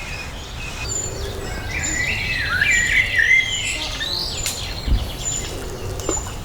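Wild birds singing: a quick warbling phrase about two seconds in, over short high chirps repeated at a steady pace.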